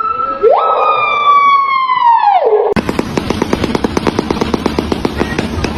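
Bird calling: a long, siren-like whistled note that swoops up and then slowly falls away. About two and a half seconds in it cuts off abruptly into a rapid, even rattle of pulses.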